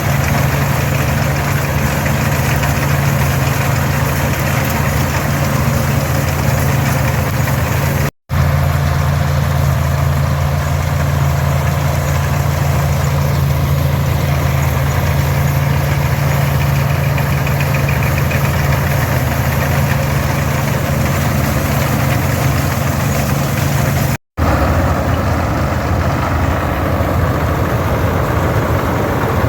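Farmall 460 tractor's six-cylinder 282 diesel running steadily under working load, together with the machinery of a pull-type International 82 combine harvesting oats. The sound cuts out for an instant twice, about eight seconds in and near the end.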